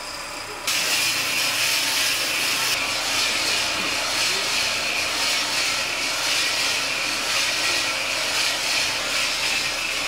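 Drum coffee roaster running: a steady, loud rushing hiss with a fine rattle in it, starting abruptly under a second in.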